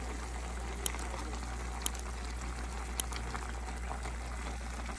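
Pumpkin pieces simmering in their own sugary liquid in a pot, a steady bubbling crackle, with a few soft clicks about a second apart as a silicone spatula works the pot. A steady low hum runs underneath.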